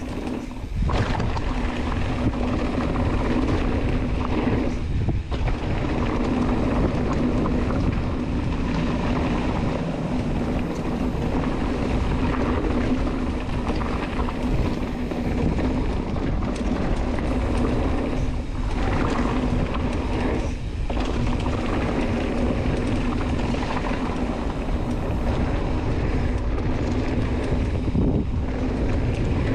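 Wind buffeting the microphone over the rumble of a mountain bike riding a dirt trail, with a steady hum running through it and a few brief drops in the noise.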